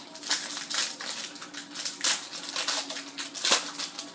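Crinkling and crumpling of a trading-card pack's foil wrapper as it is handled and torn open, an irregular run of sharp crackles.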